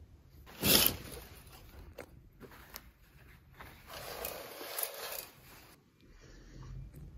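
A brief loud rustle near the start, then curtains being drawn open: the hooks and runners scrape and click along the curtain rail for about two seconds.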